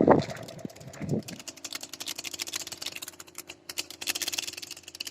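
Kite hummer (sendaren) with a mika plastic-film strip buzzing in the wind aloft: a steady, engine-like drone with a rapid flutter, settling in about a second and a half in after some louder irregular noise at the start.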